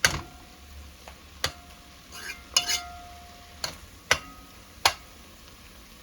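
A spoon stirring food in a cooking pot and knocking against the pot's side and rim in sharp, irregular clinks, several in about five seconds, some leaving a brief ringing tone.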